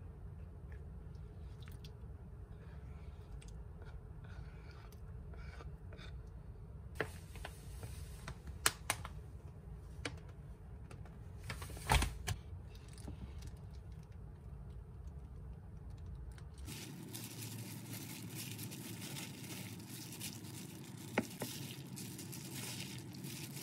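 Food prep by hand: a spoon scooping diced cooked beets from a pot, with scattered light clicks and one sharp knock about halfway. In the last third, a steady crinkling and squishing of a plastic-gloved hand mixing the diced beets in a wooden bowl.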